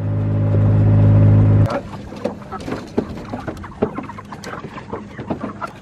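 Kubota diesel utility vehicle's engine running steadily, cutting off abruptly after about a second and a half. Then many short knocks and clatters of plastic chicken crates being lifted and set onto the vehicle's cargo bed.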